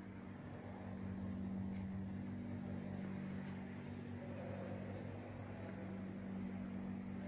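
Steady electric hum of running food-processing machinery, low and even, with a thin high-pitched whine above it.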